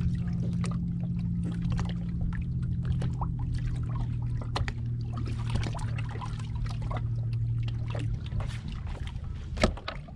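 A bass boat's electric trolling motor humming steadily, with a scatter of small ticks and water splashes against the hull; the hum stops about eight seconds in. A single sharp knock near the end is the loudest sound.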